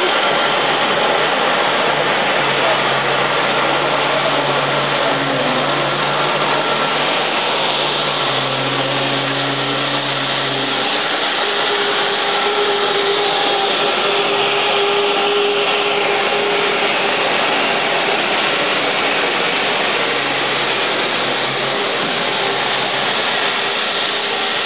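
Dulevo Diamond 100 ride-on floor scrubber running, its motors giving a steady whirring noise. Low hums under it shift in pitch about halfway through.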